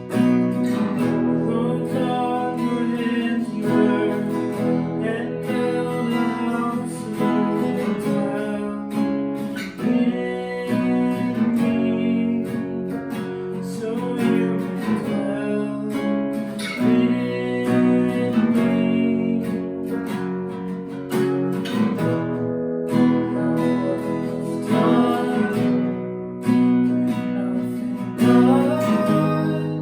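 Acoustic guitar strummed in a steady rhythm, playing sustained chords as worship music.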